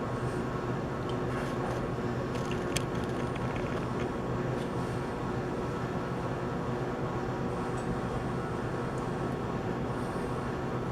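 Steady mechanical hum of a running machine or fan, with a few light clicks of parts being handled about two to three seconds in.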